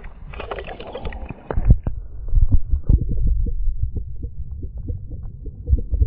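Water splashing around a camera as it is dipped under the surface, then muffled low underwater rumbling with a few dull knocks once it is submerged.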